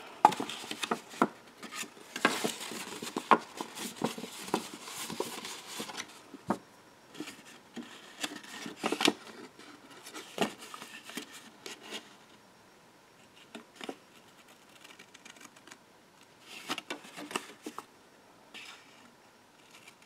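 Scissors snipping through scrapbook paper in a series of short cuts, busiest at first, with a quieter pause in the middle before a few more snips near the end.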